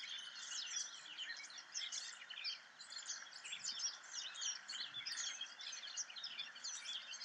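A chorus of many birds chirping and singing at once: dense, overlapping short calls over a steady hiss, as in a forest ambience.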